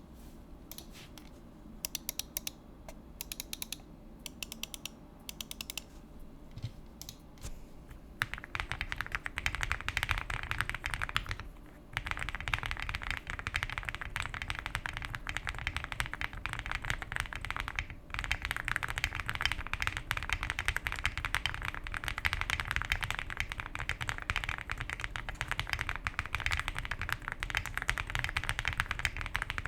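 Zoom75 75% mechanical keyboard with lubed Akko CS Silver linear switches, giving a creamy, poppy sound: a few separate keystrokes at first, then about eight seconds in, fast continuous typing with two brief pauses.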